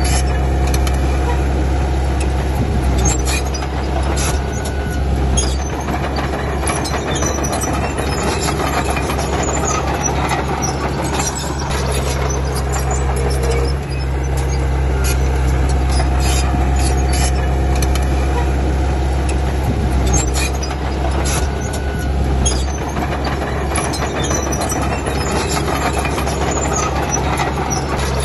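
Komatsu D31P crawler bulldozer's diesel engine running steadily as it works soil, with frequent short squeaks and clicks from its steel tracks.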